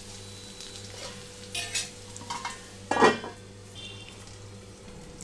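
Spatula stirring and scraping okra and boondi in a kadai over a low frying sizzle. A steel lid is set on the pan with a clank about three seconds in, ringing briefly.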